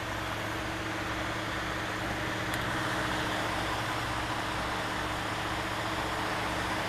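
Emergency vehicle engine idling: a steady low hum with a slow, regular throb underneath.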